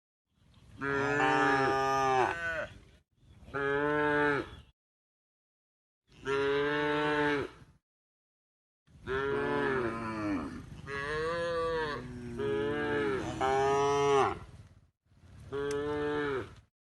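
Cattle mooing: a series of about eight separate moos, each lasting one to three seconds, with dead silence between most of them.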